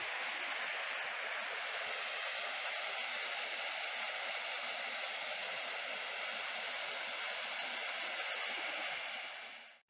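Small waterfall rushing steadily, a constant hiss of falling water; it fades out at the very end.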